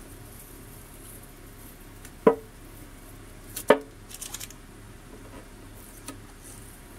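Two sharp knocks on a metal tea tin about a second and a half apart, each with a brief ring, as the tin is handled. A few faint crackles of masking tape being peeled off the vinyl lettering follow.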